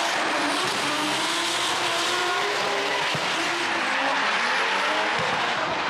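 Drift cars sliding in a tandem drift: engines revving hard, their pitch stepping up and down with the throttle, over the continuous squeal and hiss of tyres skidding sideways on the asphalt.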